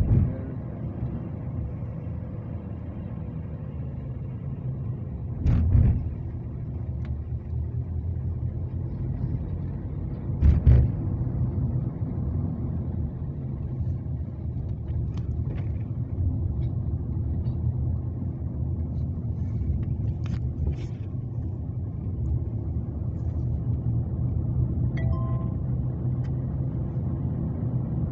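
Steady low rumble of a road vehicle driving along, heard from inside, with two brief louder thuds about five and ten seconds in.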